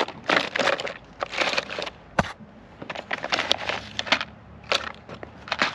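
Small parts and containers being handled and moved about: irregular rustling, clattering bursts with a few sharp clicks.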